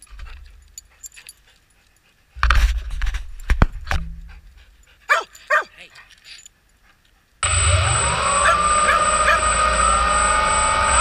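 A dog right beside the drone makes a couple of short whimpering yips, among close knocks and scuffs near the microphone. About seven seconds in, the quadcopter's motors start suddenly with a loud, steady whine, its pitch beginning to rise as they spin up near the end.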